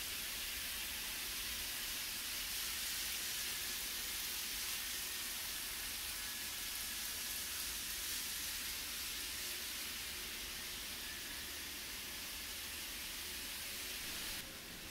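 Several model trains running together on sectional track: a steady hiss with a faint thin whine, easing off slightly in the second half.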